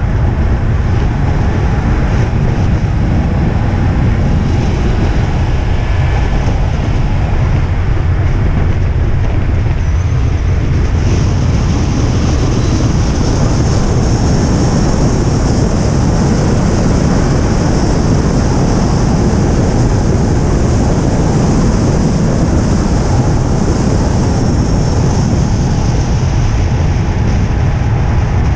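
Car being driven on a wet race circuit: loud, even rumble of the engine mixed with wind and tyre noise on wet tarmac.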